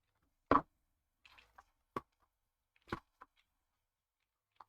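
Handling of a cardboard product box: a few sharp knocks, the loudest about half a second in, with a light scrape between them.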